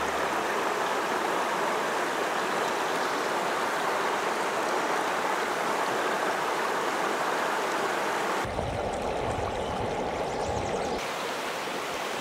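A small stream running steadily over a rocky bed. A little past eight seconds in, the sound turns dull and rumbling for about two and a half seconds before the clear rush returns.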